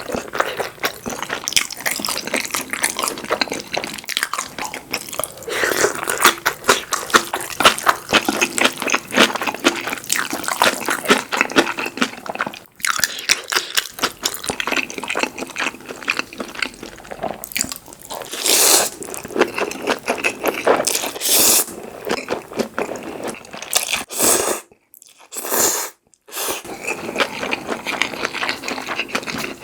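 Close-miked eating: wet, squishy chewing with crunchy bites and smacking, a few longer noisy mouthfuls standing out in the second half.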